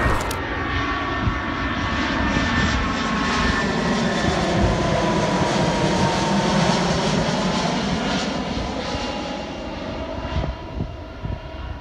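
Airbus A320-family jet airliner on landing approach, gear down, passing low overhead. Its engine noise is loud and steady, with whining tones that slide down in pitch as it goes by. It fades over the last couple of seconds.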